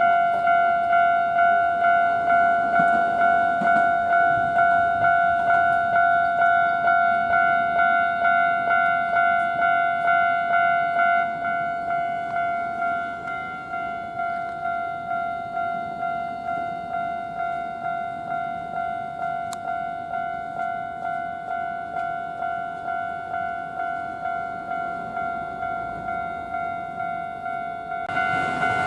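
Japanese level-crossing warning bell ringing in a fast, even rhythm of about two strikes a second, a little quieter after about twelve seconds. A train's running noise starts to come in near the end.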